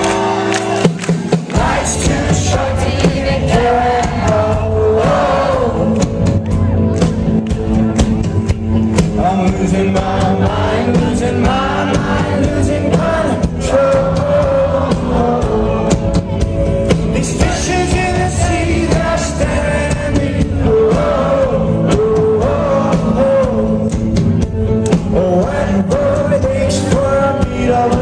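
Indie rock band playing live, with a male lead singer over guitar, keys, bass and drums. The sustained opening chords are joined by the low end and the beat about a second and a half in.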